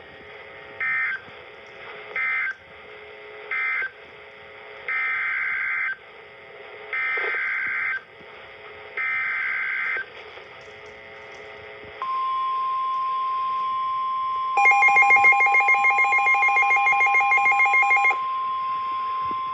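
NOAA Weather Radio EAS data tones on Midland weather radios. First three short screeching data bursts end the previous warning, then three longer bursts carry the header of the next severe thunderstorm warning. About twelve seconds in, the steady warning alert tone starts, and for about three and a half seconds a rapid pulsing alarm beep sounds over it.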